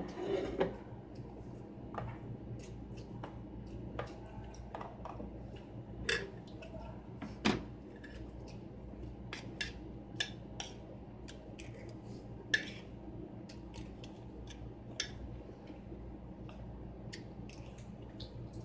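Metal spoon clinking and scraping against a plate while eating, in scattered light clicks with a few sharper knocks, over a steady low hum.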